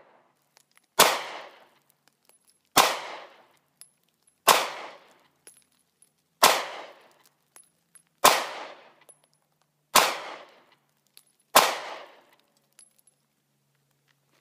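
Ruger LC9 compact 9mm pistol firing seven evenly paced shots, about one every second and a half to two seconds, each followed by a short echo. The pistol cycles each round without a failure to feed or eject.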